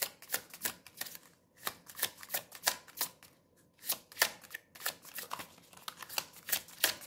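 A deck of tarot cards shuffled by hand: a quick, irregular patter of soft card slaps and flicks, with two short pauses.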